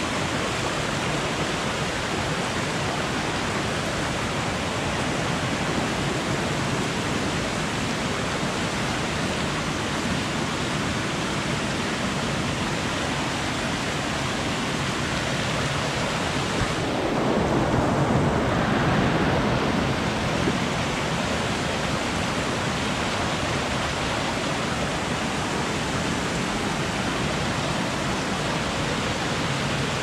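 Mountain stream rushing over rocks and small cascades, a steady rush of water. About two-thirds of the way through it swells louder and duller for a few seconds.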